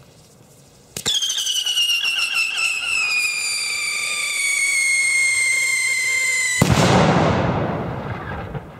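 A cipolla salute firecracker, a flash-powder charge on the ground, whistling loudly: the whistle starts about a second in and slides slowly down in pitch for about five and a half seconds. Then the charge goes off with a loud bang whose rumble dies away over about two seconds.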